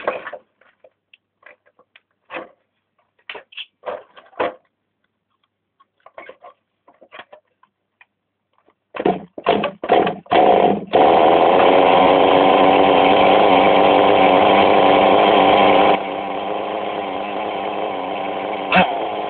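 Kyosho DST nitro RC car's small glow engine being started: scattered knocks of handling, then about four short pull-start bursts before it catches about halfway through. It then runs with a steady high-pitched buzz and drops to a quieter steady running about five seconds later.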